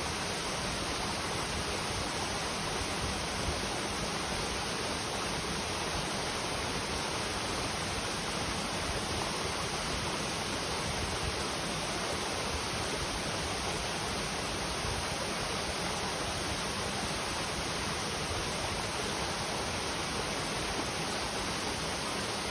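Clear stream rushing over rocks: a steady, even rush of flowing water.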